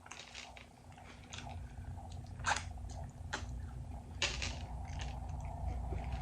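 Close-miked chewing of cheesy beef nachos: a low rumble of chewing that grows louder, broken by three sharp wet clicks about halfway through.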